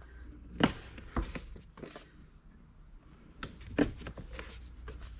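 Paperback manga volumes being handled and set onto a laminated bookshelf: a handful of quiet knocks and taps as the books meet the shelf and each other, the clearest about a second in and again near four seconds.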